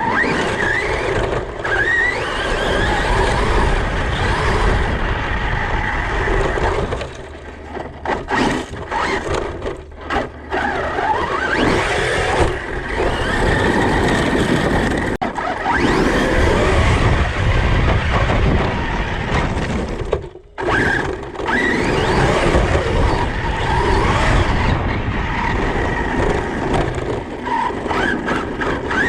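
Large brushless electric RC car driven hard: the motor's whine rises and falls with the throttle over a steady low rumble from the tyres and drivetrain, dropping off briefly several times between about 7 and 11 seconds in and again around 20 seconds.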